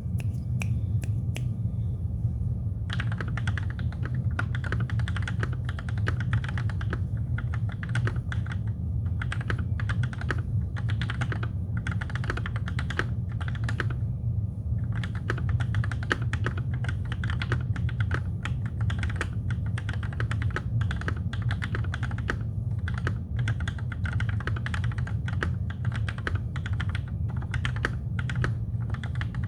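Typing on a TKC1800 mechanical keyboard with lubed Gateron Black linear switches and DSA keycaps: a few single keystrokes, then fast continuous typing that pauses briefly about halfway and resumes. A steady low hum runs underneath.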